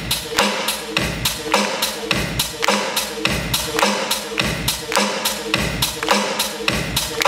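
Dance music with a steady beat of sharp percussive hits, about four a second, over a deeper pulsing bass.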